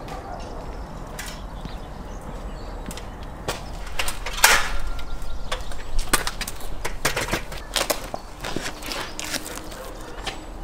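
Multi-position folding aluminium ladder clanking and rattling as it is carried and opened out into an A-frame: a loud metallic clank with a short ring about four and a half seconds in, then a string of sharp clicks and knocks from its hinges and rungs.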